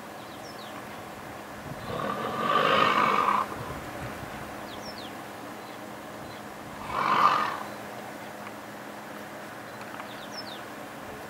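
Lions growling twice: a longer growl of about a second and a half, then a shorter one about five seconds later.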